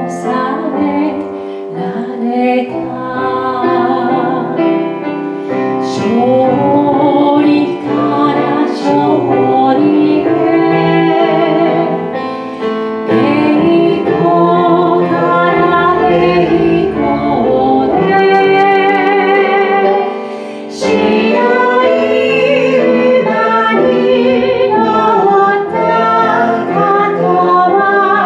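A woman sings a Christian praise song into a microphone over instrumental accompaniment; partway through, a second woman and a man join in, singing together in a vocal trio.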